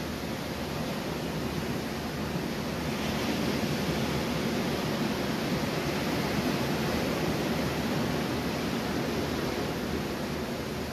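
Ocean surf breaking and washing onto the beach, a steady rushing that swells about three seconds in and eases off near the end.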